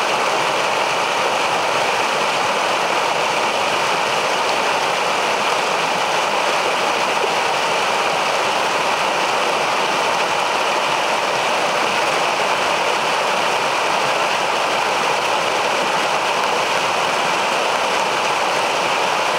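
Metolius River water rushing steadily over rocks in a short whitewater rapid, an even, unbroken rush of moving water.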